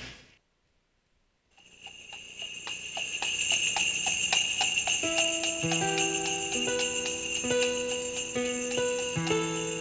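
Sleigh bells shaking in a steady beat, about three shakes a second. They fade in after a second or so of silence, and about five seconds in a melody of held notes joins them as music.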